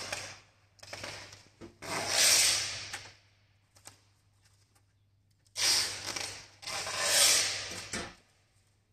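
Gloved hands rubbing and scraping against the pallet truck's plastic cover as it is pressed into place: four rasping scrapes of about a second each, in two pairs.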